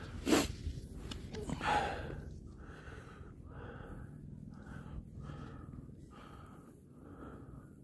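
Person breathing hard into the microphone, short puffs about twice a second, over wind rumbling on the microphone. Two louder puffs stand out in the first two seconds.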